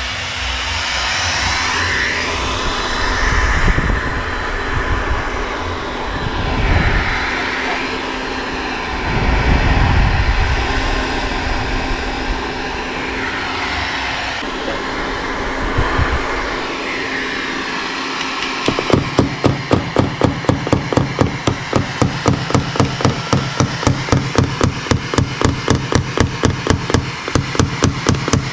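A heat gun blowing hot air with a steady motor hum, then, about two-thirds of the way in, quick even tapping, about three or four taps a second: a tap-down punch struck with a small hammer against the Audi's door panel, knocking down the metal around the dent in paintless dent repair.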